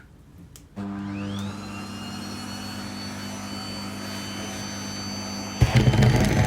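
Vacuum cleaner switched on: the motor spins up with a rising whine about a second in, then runs steadily. Near the end it gets suddenly louder and rougher.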